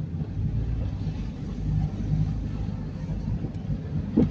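Car engine and tyre noise heard from inside the cabin while driving slowly along a street: a steady low rumble. A brief bit of voice near the end.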